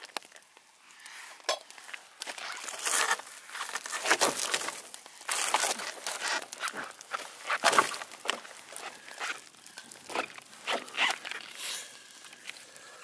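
Irregular crunching, rustling and snapping as wood is fed into a campfire and boots shift on spruce boughs and snow.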